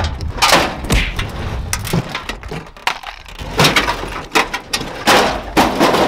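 Sheet-metal halves of a cut-open microwave casing clattering and scraping against each other and the table as they are pulled apart and handled: a string of sharp knocks and scrapes.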